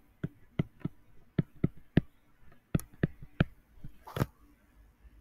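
Irregular sharp clicks and taps of a digital pen against its writing surface during handwriting, about a dozen, with one short rustle about four seconds in.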